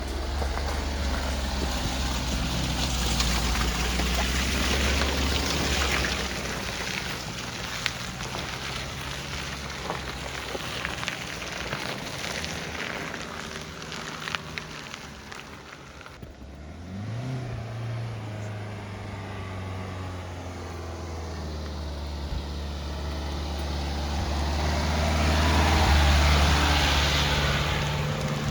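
Dacia Duster's 1.5 dCi four-cylinder turbodiesel running as the 4x4 drives off-road, with tyre and track noise and scattered clicks. The engine eases off about halfway through, then revs up and gets louder toward the end.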